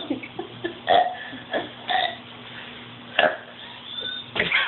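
A boy burping over and over, a string of short burps about one a second, brought on by drinking Coke.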